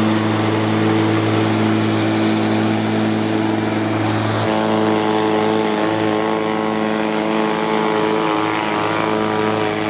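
DeWalt FlexVolt 60V cordless electric push mower running, its motor and blade making a steady hum at one pitch. The tone shifts slightly about four and a half seconds in.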